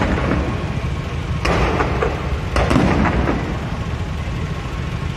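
Aerial fireworks going off in a rapid volley: sharp bangs and crackling over a continuous low rumble of repeated explosions. The sharpest bangs come at the start, about a second and a half in, and again just after two and a half seconds.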